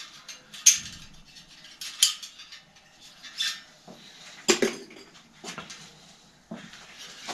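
Light metallic clinking and rattling as a spoked bicycle wheel and small tools are handled, with a louder knock about four and a half seconds in.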